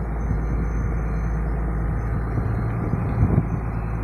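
Fishing boat's engine running steadily under way: an even, low drone.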